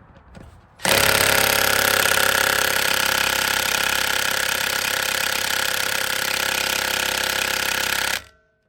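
Cordless impact wrench hammering steadily on a tight brake bolt. It starts about a second in and runs about seven seconds before cutting off abruptly.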